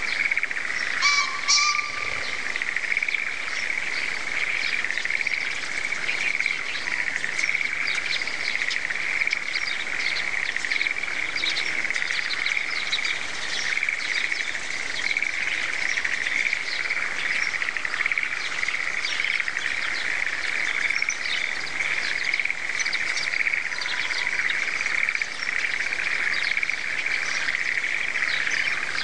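Steady, dense chorus of frogs calling from the rice paddies, with birds chirping over it.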